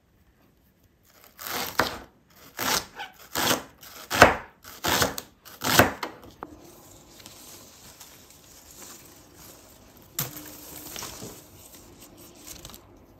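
Knife slicing a shallot on a plastic cutting board: about six sharp cuts in quick succession starting a second or so in, then quieter, softer cutting and rustling.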